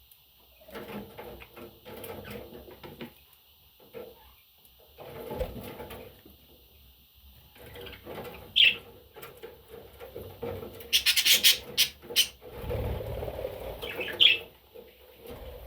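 Pet budgerigar giving two short chirps, with scattered rustles and a quick run of sharp clicks in between.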